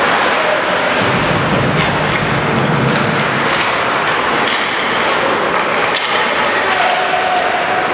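Ice hockey rink during play: a steady wash of arena noise with scattered sharp knocks and clacks of sticks, puck and boards.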